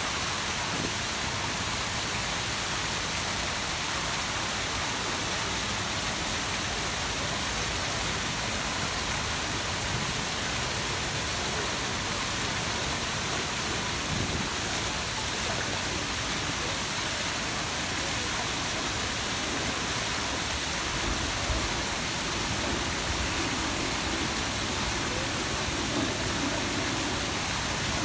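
The Grand Cascade fountains at Peterhof running. Many jets, among them the tall central Samson fountain jet, spray up and splash down into the pool, giving a steady rushing hiss of falling water.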